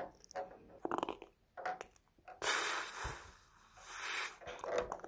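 Handling noise close to the phone's microphone: a few light clicks and taps, and two short hissing rushes about two and a half and four seconds in.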